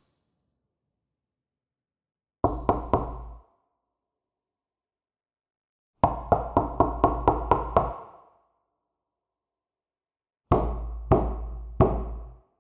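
Knocking on a door in three separate bouts: four quick knocks, then a longer run of about eight rapid knocks, then three slower, spaced knocks, with complete silence in between.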